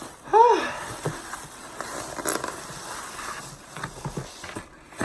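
Rustling and crackling of takeout food packaging being handled and opened, with scattered small clicks, after a brief vocal sound near the start.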